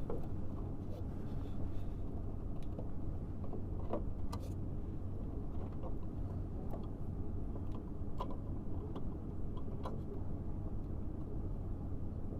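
A steady low rumble with light clicks and taps scattered through it, as the sheet-metal cover of a VAV terminal box is fitted back on.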